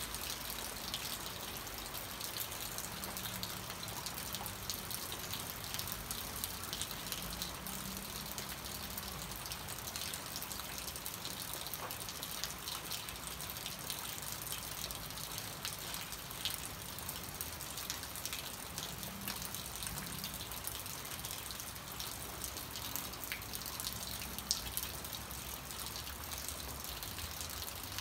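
Steady rain falling on banana plants, a constant hiss dotted with the small ticks of drops striking the broad leaves.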